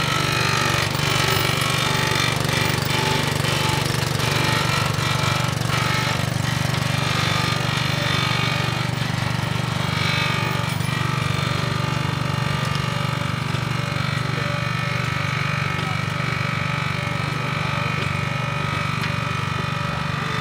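The pump motor of a horse-drawn 55-gallon produce sprayer running steadily with a fast, even chugging pulse while the boom sprays. It eases off slightly near the end.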